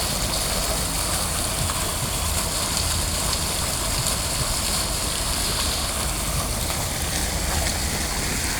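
Steady rushing of running water, an even hiss that holds without a break.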